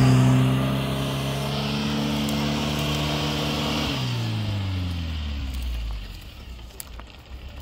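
UAZ-469 off-roader's engine held at steady high revs as it drives through mud. About four seconds in the revs drop away over a couple of seconds, and the engine then goes faint.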